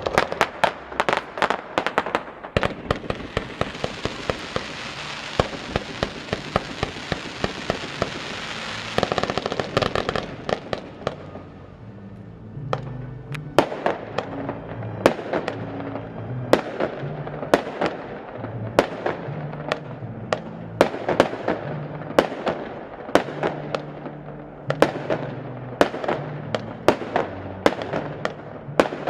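Fireworks display: a fast run of sharp bangs with a dense hissing crackle for several seconds near the start. After that come separate bangs, about one or two a second, over background music.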